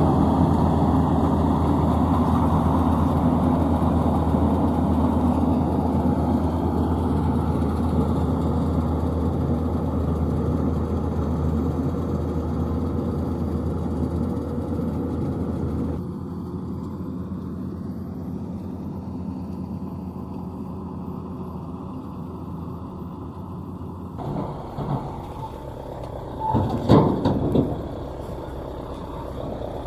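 Combine harvester engine running steadily and slowly fading, dropping sharply in level about halfway through. A few short louder sounds come near the end.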